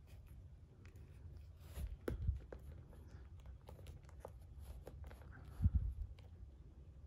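Faint handling noise of a plastic action figure being posed: small clicks and rustles of plastic parts and rubber clothing under the fingers. Two soft low thumps, about two seconds in and again near the end.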